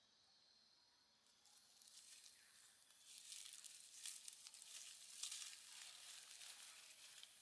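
Faint rustling and crackling of dry leaf litter as a macaque walks and forages through it, over a steady high hiss.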